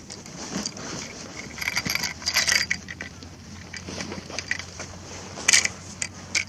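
Metallic jingling and clicking of handled gear close to the microphone: a cluster of rattles about two seconds in and a few sharp clicks near the end.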